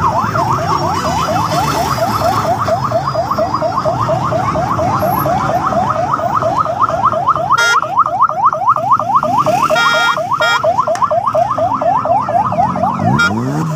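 Electronic vehicle siren sounding in a rapid yelp, pitch sweeping up and down about five times a second without a break.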